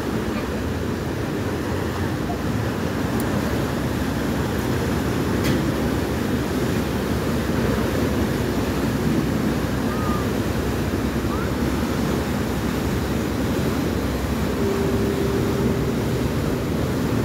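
Car ferry's engines and propellers working hard as it pulls away from the dock: a steady low rumble mixed with churning propeller wash, growing a little louder a few seconds in.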